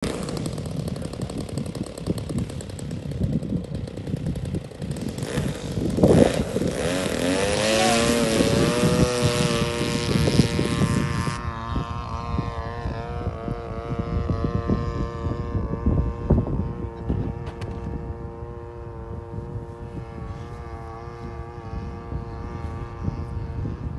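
RC Super Cub model airplane's motor and propeller throttling up for takeoff: the pitch rises about six seconds in, then settles into a steady drone that drops slightly and fades as the plane climbs away. Wind noise on the microphone runs underneath.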